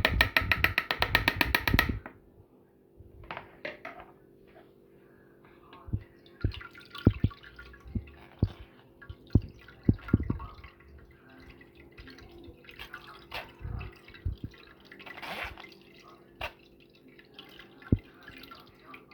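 Lemon syrup draining through a strainer, dripping and trickling in uneven drops with occasional light clicks and knocks. A loud dense clattering burst fills the first two seconds.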